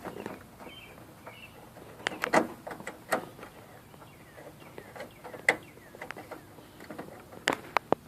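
Scattered sharp metallic clicks and taps from bolts being threaded by hand into a new hood latch, about six in all, irregularly spaced. A few faint bird chirps about a second in.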